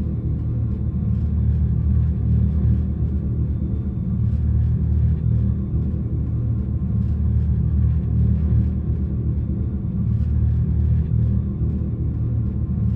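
A deep, steady rumble with music alongside it.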